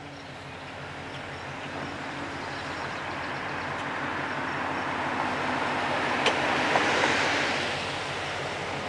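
Diesel-electric locomotives approaching on the rails, an EMD FP9 leading with its 16-cylinder 567 engine: a steady engine drone and wheel-on-rail rumble grow louder as it nears. A few sharp clicks come about six to seven seconds in.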